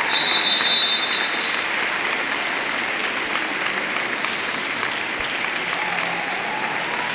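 Crowd applauding steadily, with a brief thin high tone over it in the first second or so.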